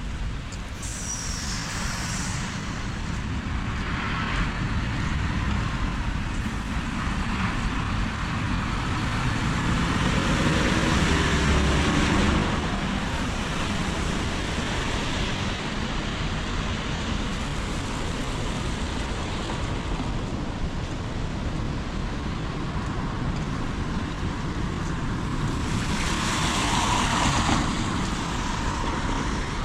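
Steady rain hiss with a motor vehicle passing on the wet road, loudest about ten to twelve seconds in; another swell of sound comes near the end.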